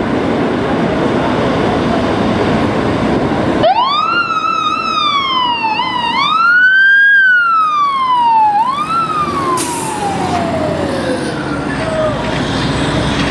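FDNY fire engine's siren, running code 3 on a call. It starts about a third of the way in, rising and falling in pitch several times and peaking in the middle, then glides slowly down and dies away near the end. Heavy traffic and engine rumble fill the start, before the siren.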